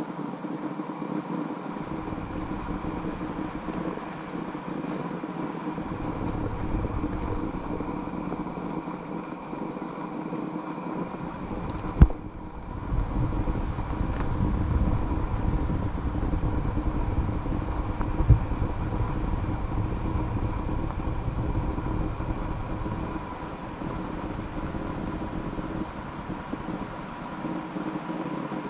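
Wind buffeting an action camera's microphone: a steady rumbling noise that comes and goes in long stretches. A single sharp knock about twelve seconds in.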